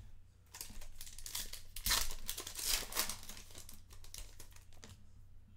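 A trading card pack's wrapper being torn open and crinkled, a run of crackling rustles loudest around the middle.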